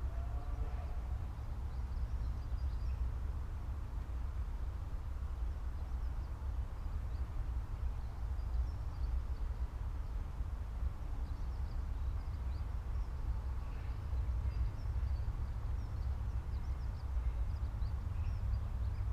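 Quiet farmland ambience: a steady low rumble with faint, scattered bird chirps, and a brief distant animal call about a second in.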